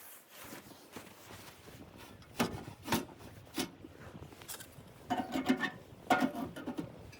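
Irregular knocks and clatters: a few sharp ones about two and a half and three seconds in, then a busier run of clunks with a slight ring near the end.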